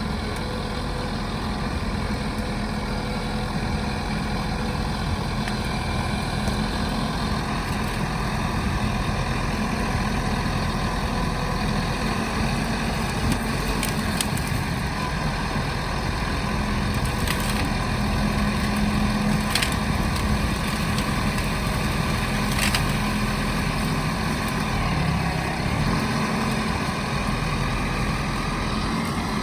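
Compact backhoe loader's engine running steadily, with a few sharp clicks or knocks about halfway through and later on.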